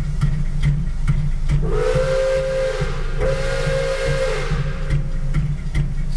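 Steam whistle of Pere Marquette 1225, a Lima-built Berkshire steam locomotive, sounding two steady chime blasts of about a second and a half each, with a hiss of steam. Under the blasts runs a steady low, pulsing rumble.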